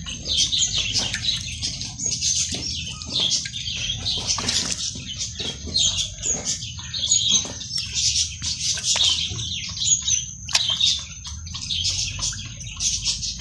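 Many small birds chirping and trilling rapidly and almost without pause. Short splashes and scrapes come through at intervals as water is sprinkled by hand from a bucket onto freshly sown soil.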